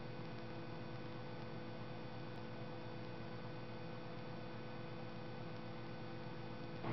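Steady electrical hum: several constant tones over a faint hiss, unchanging throughout.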